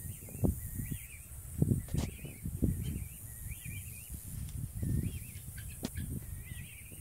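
A bird repeating short warbling chirps about once a second, over irregular low rumbling on the microphone, with a couple of sharp clicks.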